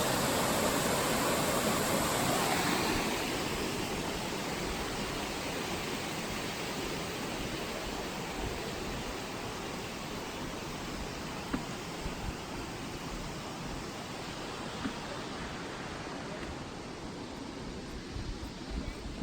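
Roughlock Falls rushing: a steady waterfall noise that drops about three seconds in and then fades slowly as the falls grow more distant. A few faint knocks sound later on.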